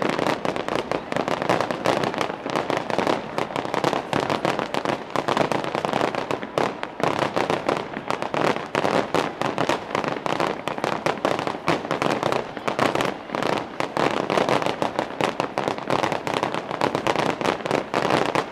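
Fireworks display going off in a dense barrage: a rapid, unbroken run of bangs and crackling pops, many per second.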